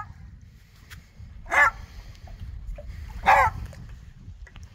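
A beagle giving two short, high yelping whines, each a fraction of a second long and about two seconds apart.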